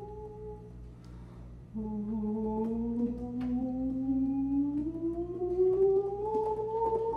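Improvised sustained tones from a saxophone quartet's players. A held tone stops about half a second in. Just under two seconds in, a low sustained tone enters and glides slowly upward about an octave, with a higher tone rising alongside it.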